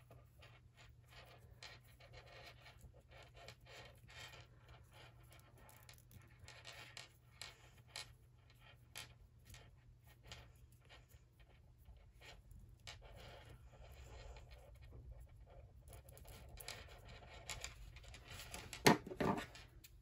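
Faint handling sounds of fingers tying stretchy elastic cord through a yarn tassel loop: light rustling and scattered small clicks of plastic pony beads on the cord. A brief louder sound comes near the end.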